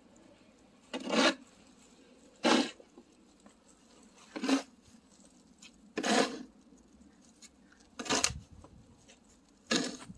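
Snow shovel blade scraping over wet pavement, pushing heavy slushy snow: six short scrapes, one every second and a half to two seconds.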